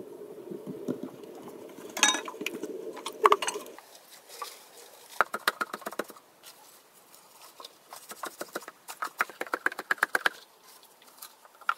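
Wooden pestle pounding plant material in a bamboo tube, quick runs of sharp knocks from about five seconds in, crushing leaves and flowers to make natural paint. Before that, a low, even rushing noise with two sharp knocks.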